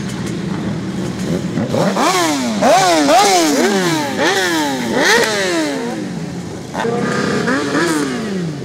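Sport motorcycle engines revved in quick throttle blips: after a steady running noise, the engine note climbs and drops back about seven times in a row, pauses briefly, then revs up and down a couple more times near the end.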